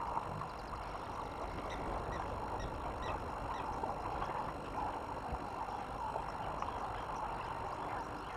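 Steady outdoor bush ambience picked up by a webcam's microphone: an even background hiss, with faint bird calls between about one and a half and three and a half seconds in.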